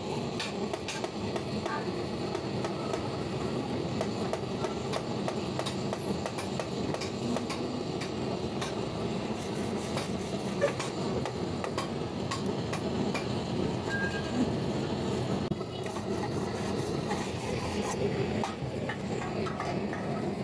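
Pressurised liquid-fuel blowtorch burning with a steady noise as it heats a soldering iron for soldering a radiator tank, with a few faint clicks and taps.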